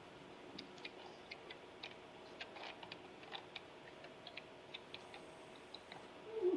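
Faint, irregularly spaced small clicks and ticks over a low steady room hum, with a brief louder low sound right at the end.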